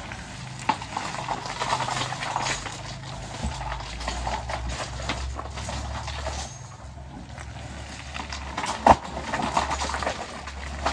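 Heavy diesel construction machinery running with a steady low drone, under scattered clanks and knocks; one sharp knock near the end is the loudest sound.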